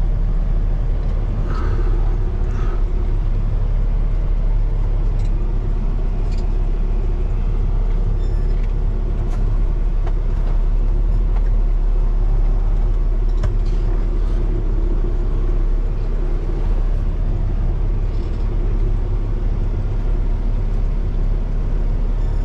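Peterbilt 389 semi truck's diesel engine running at low revs, heard from inside the cab as the truck creeps slowly over gravel: a steady low rumble with a few faint clicks.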